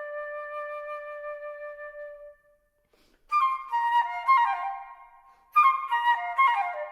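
Solo flute: a long held note that fades out about two seconds in, a short silence, then two loud sudden entries, each followed by a quick run of falling notes.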